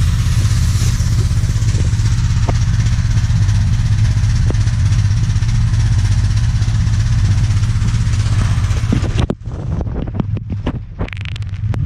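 Pressure washer running steadily, a low motor drone under the hiss of the water jet. About nine seconds in it stops abruptly, leaving only a few scattered clicks and knocks.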